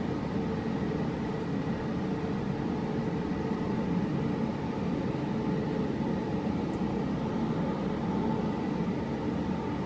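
Air conditioning running: a steady rush of air with a faint steady hum.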